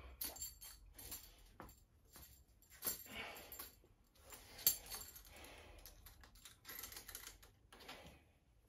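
Heavy breathing from a lifter between deadlift efforts, mixed with scattered light clicks and rattles, the sharpest about four and a half seconds in.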